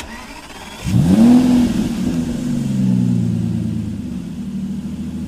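Car engine revving up sharply about a second in, then easing back down into a steady idle.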